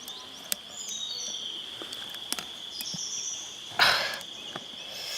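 Steady high-pitched insect trill, typical of crickets or cicadas in forest, with a few short high chirps and scattered light clicks. A loud, brief rustling burst comes about four seconds in.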